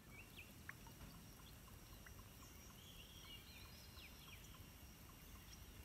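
Near silence: faint outdoor ambience with a steady low rumble and a few faint, short bird chirps.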